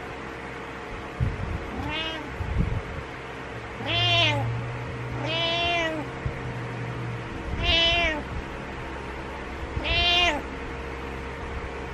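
Domestic cat meowing again and again: five drawn-out meows, each rising then falling in pitch, one to two and a half seconds apart.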